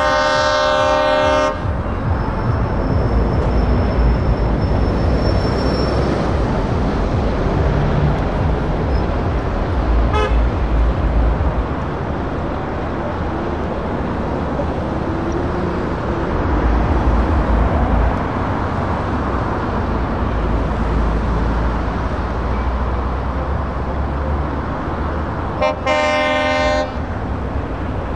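A lorry horn sounds once for about a second and a half at the start and again briefly near the end. Between the blasts, the diesel engines of lorries pulling slowly past keep up a steady low rumble, including a DAF XG tractor unit.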